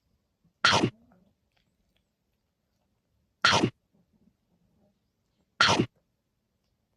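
A chihuahua making three short, sharp noises, spaced about two to three seconds apart, with quiet between them.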